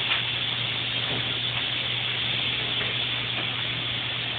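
Bathroom sink tap running, a steady stream of water splashing into the basin, over a steady low hum.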